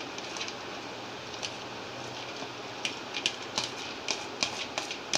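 Soaked moong dal being scraped by hand out of a plastic bowl into a steel mixer-grinder jar: scattered light clicks and taps as the wet lentils and fingers hit the bowl and jar, more of them in the second half, over a steady low hiss.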